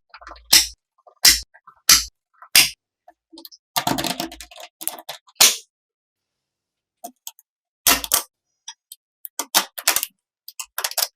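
Sharp clicks and knocks of small parts and tools being handled in a hand build, at first a regular tap about every half second. A short scraping rattle comes around four seconds in, then scattered clicks after a brief pause.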